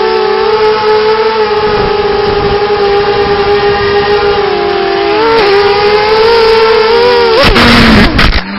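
Racing quadcopter's brushless motors and propellers whining steadily, the pitch dipping briefly about five seconds in. Near the end a loud rushing noise comes in as the motor pitch drops.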